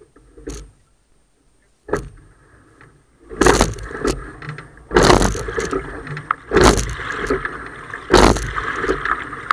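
Racing single scull starting from a standstill at a stroke rate of about 38–40. After a few quiet seconds with a couple of light clicks, the strokes begin about three seconds in, each a loud splash and clunk of the blades and oarlocks, about one every second and a half, with water rushing along the hull between them.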